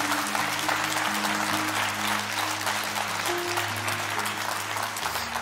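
Audience applauding steadily, a dense patter of many hands clapping, over soft sustained music chords underneath.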